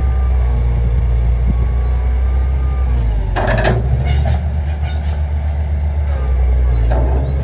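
Komatsu PC800-7 hydraulic excavator's six-cylinder turbo diesel running under load with a deep, steady rumble while the boom and bucket are worked. There is a short, noisy burst about three and a half seconds in and a smaller one near the end.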